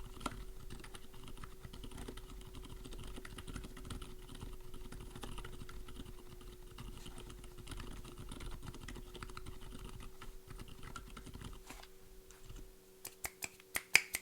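Fast typing on a mechanical keyboard with lubed silent tactile switches (Outemu silent tactile stems in Gateron yellow housings), a soft, muted patter of keystrokes. The typing stops about twelve seconds in, and a few sharp, much louder clicks follow near the end.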